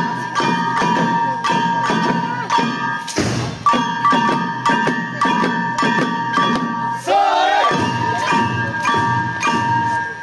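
Small hand-held kane gongs struck in a quick, steady beat, about three strokes a second, each ringing with a bright metallic tone. The dancers shout briefly about seven seconds in.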